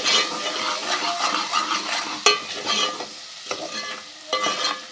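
A spoon scraping and clacking against a pan as fried onion, ginger-garlic paste and ground spices are stirred, with a sizzling hiss under it. The stirring and sizzle ease off about three seconds in.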